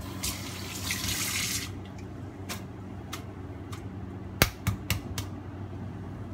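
A brief rush of running tap water, then a few light clicks and a sharp crack, followed by three smaller knocks, of a raw egg being knocked open against a hard edge.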